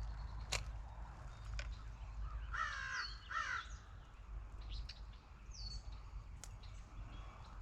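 A bird giving two short harsh calls about three seconds in, with a few faint small clicks and a brief high chirp later.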